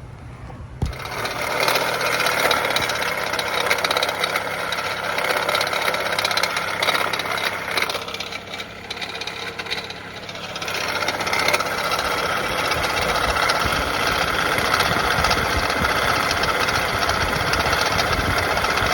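Chrysler 200 engine starting about a second in and running with a loud, harsh screeching grind from its failing alternator, whose pulley is shedding metal flakes. The noise eases briefly in the middle, then comes back.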